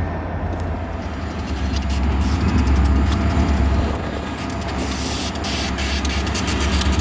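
Diesel freight locomotive running with a steady low engine rumble that gets louder about two seconds in. Sharp, irregular clicks come in at the same point and carry on to the end.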